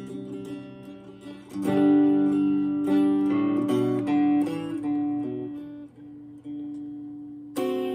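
Acoustic guitar playing blues, without singing: strummed chords and picked notes, with a strong strum about a second and a half in. The playing thins to a single ringing note before a new strum near the end.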